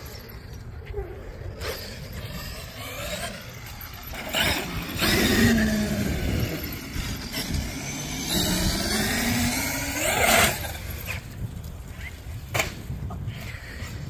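Traxxas X-Maxx 8S RC monster truck's brushless electric motor whining up and down in pitch as the truck accelerates and slows on concrete, loudest in the middle stretch. There are sharp knocks, the loudest near the end of the driving burst and another about two seconds later, typical of the truck landing jumps.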